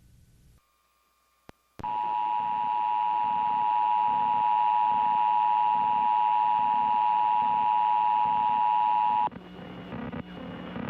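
Emergency Alert System attention signal: two steady tones sounding together (the 853 Hz and 960 Hz alert pair) for about seven and a half seconds. It starts about two seconds in and cuts off abruptly, leaving a low hum.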